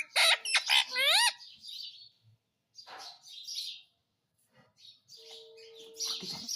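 Pet parrot calling: a few loud squawks with wavering pitch in the first second and a half, then softer scratchy chirps after a short pause.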